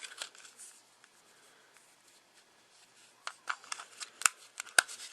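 AAA batteries being fitted into a small plastic wireless mouse's battery compartment: handling noise and a run of sharp plastic clicks in the last two seconds, the loudest about four seconds in.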